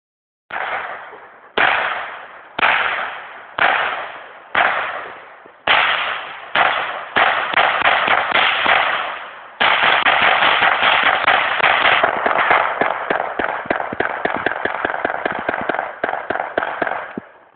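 Ruger 10/22 semi-automatic .22 LR rifle firing a long string of shots from a 50-round drum magazine. The shots start about a second apart, quicken after about six seconds, turn to rapid fire from about ten seconds in, and stop near the end when the drum runs empty.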